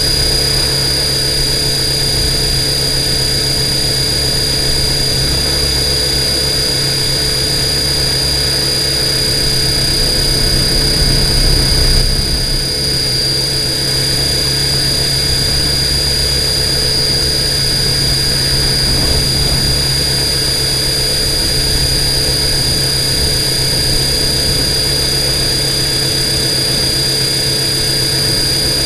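Radio-controlled copter's motors and rotors hovering, heard close up from its onboard camera: a steady drone with a high whine held throughout, with a slight swell about twelve seconds in.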